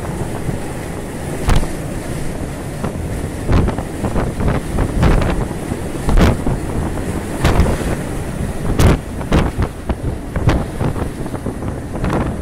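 Gale-force storm wind buffeting the microphone on a ship in heavy seas. It makes a dense low rumble with irregular sharp pops from the gusts, over the wash of breaking waves.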